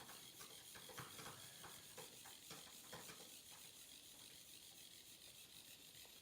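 Near silence, with faint light scrapes and ticks in the first three seconds from a 3D pen's nozzle laying PLA filament on paper.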